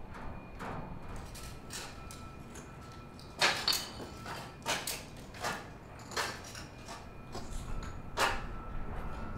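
Sound-design track of irregular sharp knocks, each with a short ringing tail, the loudest about three and a half seconds in and another strong one near the end, over a low steady rumble and a faint steady high tone.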